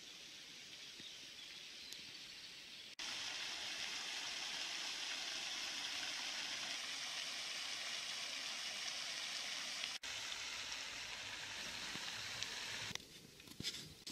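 Ornamental pond fountain, its spray falling back onto the water in a steady splashing hiss. It is fainter for the first few seconds, louder from about three seconds in, and gives way near the end to quieter outdoor ambience.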